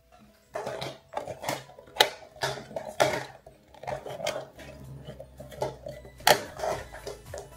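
Hollow plastic toy capsules knocked together and rolled on a tabletop by hand: a run of irregular hard clacks and short rattles, about two or three a second, with two sharper knocks standing out.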